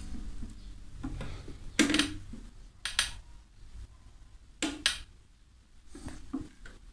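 Handling noise from a 1955 Olivieri classical guitar being turned and moved about: four short knocks and brushes against the wooden body, the loudest about two seconds in.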